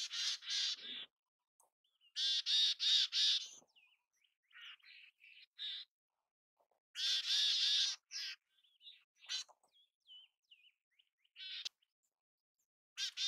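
Mountain chickadee calling: runs of three or four harsh, buzzy notes, repeated several times, with short high chips in between.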